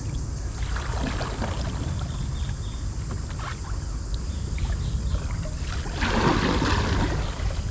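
Kayak paddle strokes in creek water, with one louder splashing stroke about six seconds in, over a steady low rumble of wind on the microphone.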